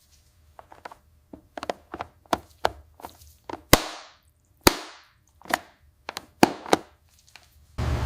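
Antique silverware clinking and knocking as the pieces are handled: an uneven run of light metal knocks, with two louder strikes a little under halfway through that each ring briefly.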